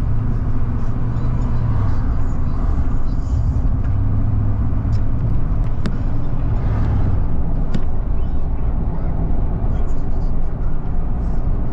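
Steady low rumble of car engine and road noise heard from inside the cabin while driving.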